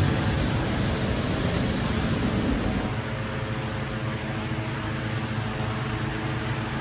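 Steady mechanical running noise, like a vehicle or machine. About three seconds in the high hiss drops away, leaving a low hum made of several steady tones.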